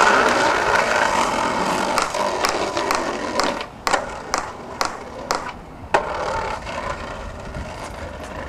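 Skateboard wheels rolling fast on a concrete path, then clacking sharply about twice a second as they cross the joints in the paving, before settling into a quieter roll.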